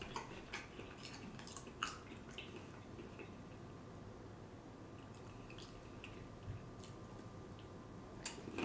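Faint mouth sounds from eating vegan cornbread: soft wet clicks and smacks of chewing in the first couple of seconds, a quiet stretch, then a bite into the cornbread near the end.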